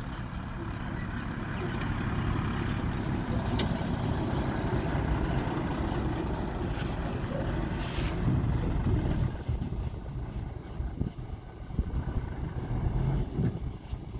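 Heavy earthmoving machinery's engine running and working. It grows louder in the first couple of seconds and becomes uneven after the middle, with a couple of sharp knocks.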